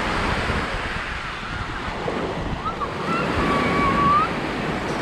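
Small ocean waves breaking and washing up the sand at the water's edge, with wind buffeting the microphone.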